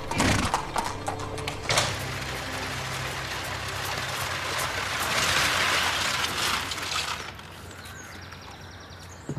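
Horse-drawn carriage on a gravel drive: hooves clip-clopping and wheels crunching over the gravel. The crunching swells, then fades as the carriage comes to a stop about seven seconds in.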